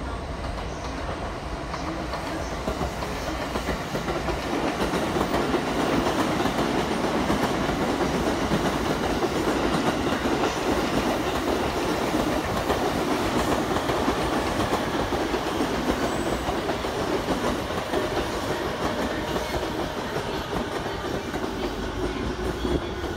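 A JR East E217 series 15-car electric train running past close by, a steady noise of wheels on rails that grows louder over the first few seconds as it nears and then holds.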